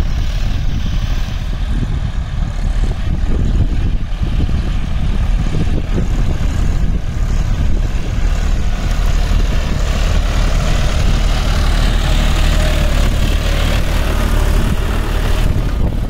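Tractor engine running steadily under load while pulling a hydraulic reversible plough through the soil, a little louder as the tractor comes closer.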